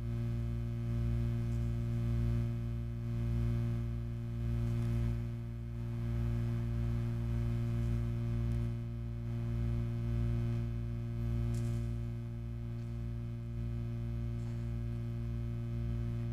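Abstract electronic drone imitating tinnitus: a steady low hum with a stack of held tones above it, its loudness slowly swelling and dipping.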